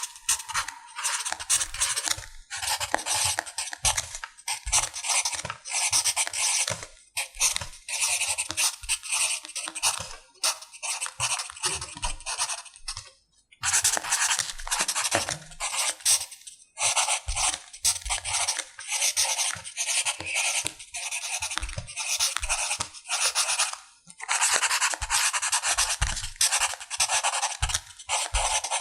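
Pencil writing on paper: scratchy strokes in quick runs with short pauses between them, and a couple of longer breaks.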